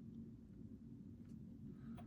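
Very quiet lock picking in a Mul-T-Lock Interactive cylinder: a couple of faint, short clicks from the pick working the pins, over a low steady hum.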